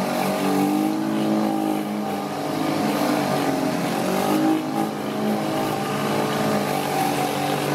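Kärcher K5 electric pressure washer running steadily under load, its motor and pump humming with a slightly wavering pitch, over the hiss of water jetting from a rotary surface cleaner onto wooden decking.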